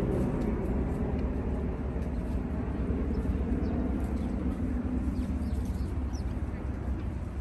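Small birds chirping faintly in short high notes over a steady low rumble that is louder than the birds.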